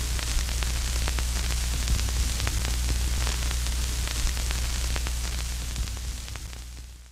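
Static hiss with scattered crackles over a steady low electrical hum, fading out near the end.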